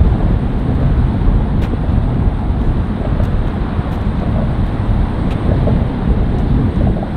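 Wind buffeting the microphone: a dense, uneven low rumble.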